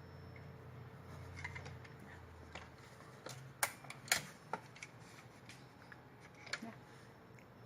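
A handful of scattered sharp clicks and light knocks, two louder ones close together near the middle, from a portable manual typewriter being handled or worked slowly. A faint low hum stops about two and a half seconds in.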